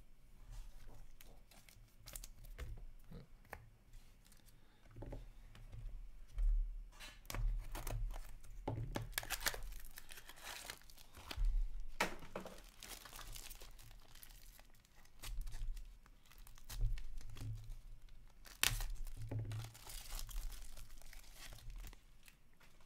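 Foil trading-card pack wrapper being torn open and crinkled by hand, with irregular crackling and sharp clicks. The tearing and crinkling come in two main stretches, in the middle and again near the end.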